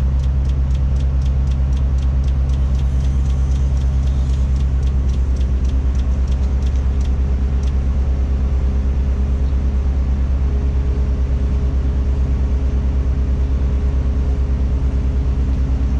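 Tadano crane's engine running steadily under load, heard from inside the operator's cab while it hoists a load. A light, regular ticking, about three a second, runs through the first half and fades out.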